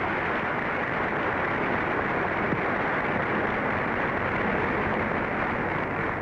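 Audience applauding steadily after the award winner is announced, heard through an old, muffled recording with a faint low hum.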